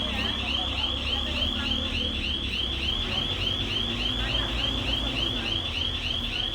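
Electronic panic alarm sounding continuously: a high-pitched warble of rising-and-falling chirps, about four a second, repeating without a break.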